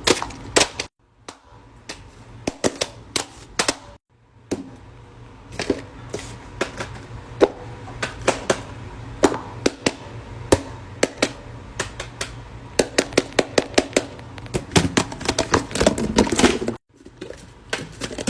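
Rapid, irregular clicks and pops from a homemade pop-it fidget toy being handled and pressed, in runs of sharp snaps broken by a few abrupt cuts.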